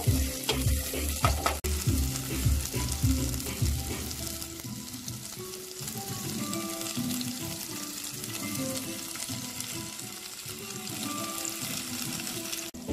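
Chopped garlic, chili and ginger sizzling in hot oil in an aluminium pot while being stirred with a wooden spoon. Background music with a beat plays underneath.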